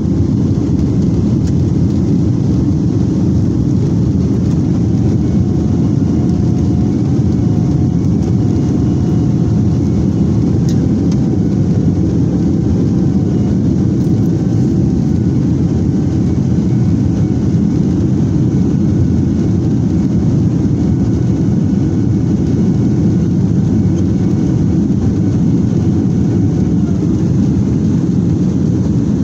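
Jet airliner cabin noise heard from a window seat over the wing during the climb after takeoff: a loud, steady, deep rush of engine and airflow, with a faint wavering engine hum over it from about five seconds in.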